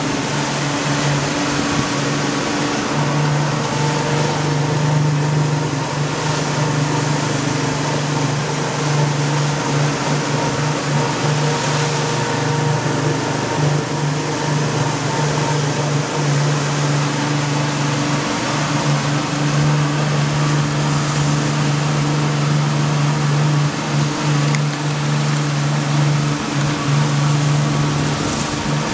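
Motorboat engine running at a steady speed, a constant even hum, over a steady hiss of wind and water.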